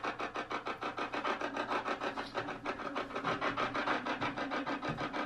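Choppy electronic static pulsing rapidly and evenly, about eight pulses a second, with a faint low hum under it.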